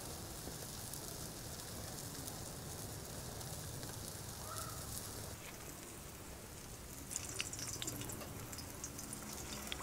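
A steady soft hiss while cooking oil pours in a thin stream into a steel wok over charcoal, easing off about five seconds in. About seven seconds in, sliced potatoes go into the hot oil and it starts crackling and sizzling.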